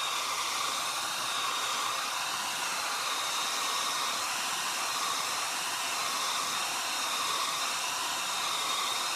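Handheld hair dryer running steadily, an even rush of blowing air with a faint high whine, drying wet enamel paint on glass.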